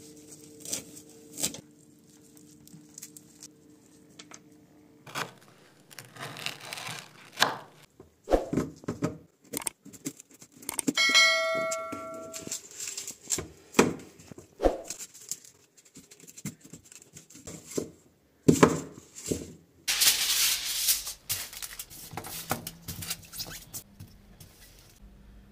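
A kitchen knife chopping and cutting on a wooden cutting board, with sharp knocks of the blade on the wood. About eleven seconds in, a bell chime rings for over a second, and about twenty seconds in, aluminium foil crinkles as it is handled.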